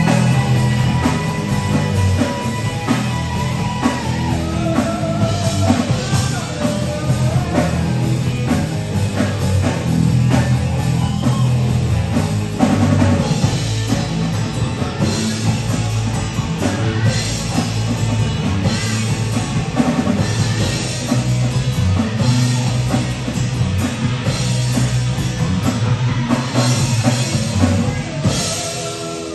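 Live rock band playing: drum kit, bass guitar and electric guitar through Marshall amplifiers. A guitar holds a long note for the first few seconds, and the music drops in level near the end.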